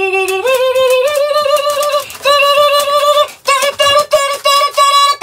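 A high, artificial-sounding singing voice holding notes with a slight wobble. It steps up in pitch about half a second in, breaks off briefly, then goes into a run of short repeated notes for the last couple of seconds.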